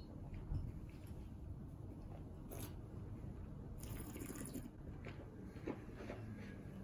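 Faint mouth sounds of tasting red wine: a sip followed by slurping and swishing, with two short hissing draws of air through the wine, the longer one about four seconds in, and a few soft clicks.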